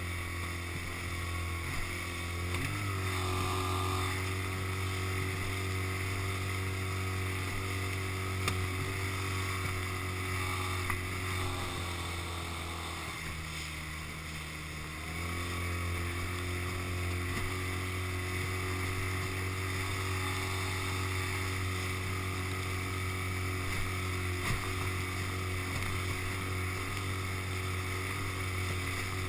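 Small outboard motor pushing an inflatable dinghy, running at a steady pitch. Around the middle the engine note drops and quietens for a few seconds as the throttle is eased, then picks back up.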